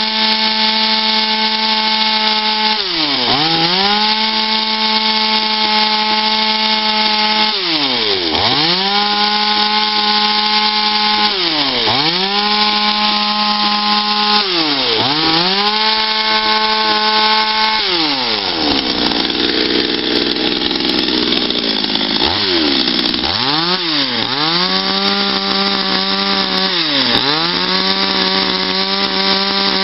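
Two-stroke Patriot chainsaw carving wood: the engine is held at high revs for a few seconds at a time, then drops briefly and revs back up, over and over. A little past the middle the steady pitch breaks up for a few seconds while the chain is in the cut.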